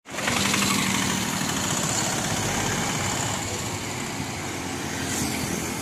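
Small vehicle engine running steadily amid road traffic noise, its low hum strongest in the first second or so.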